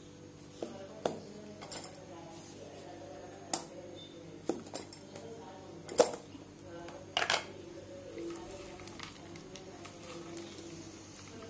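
Plastic food containers and their lids clicking and knocking against a countertop as they are handled, about ten sharp knocks, the loudest about six seconds in.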